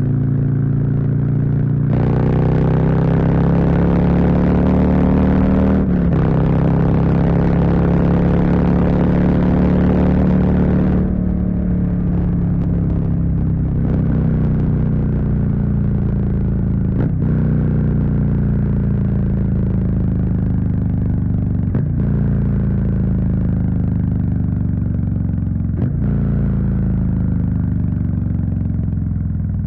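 Harley-Davidson Street Bob's Milwaukee-Eight V-twin engine running under way on the road, with a loud rush of wind from about 2 s to 11 s in. The engine sound breaks briefly several times, then runs more gently with its pitch slowly falling.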